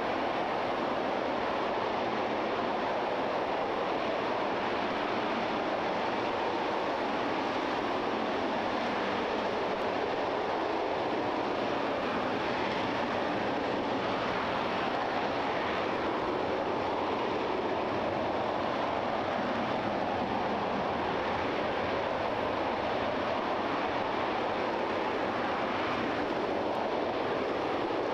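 RS-25 liquid-hydrogen/liquid-oxygen rocket engine firing steadily on a test stand: a continuous, even rushing noise that holds the same level throughout.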